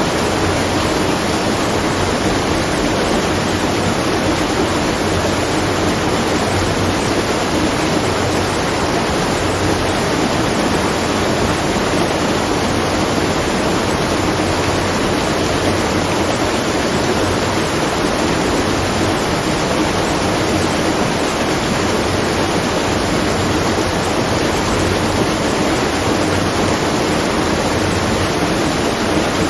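Water rushing and splashing at a watermill, a steady, unbroken wash of sound.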